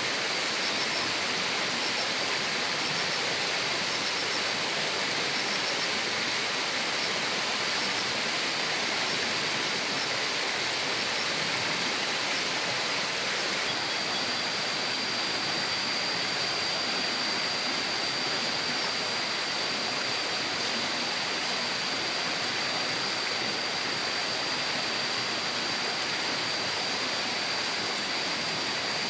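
Steady rushing of running water with a thin, steady high whine over it, which grows stronger about halfway through.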